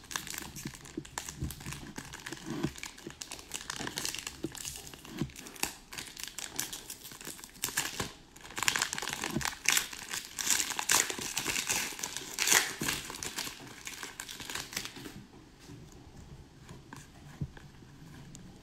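Foil wrapper of an Upper Deck hockey card pack crinkling and tearing as it is worked open by hand, a stubborn pack that takes many tries. The crackling is loudest about halfway through and dies down near the end as the cards come out.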